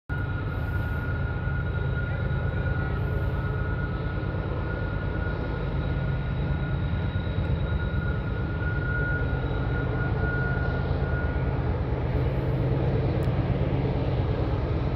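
Freight train's diesel locomotives and cars giving a steady low rumble, with a thin steady whine over it that fades out about two-thirds of the way through.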